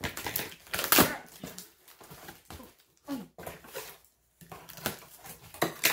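Cardboard shipping box being opened by hand: packing tape cut and pulled away and cardboard flaps rustling, in short scraping and crinkling noises, the loudest a sharp rip about a second in.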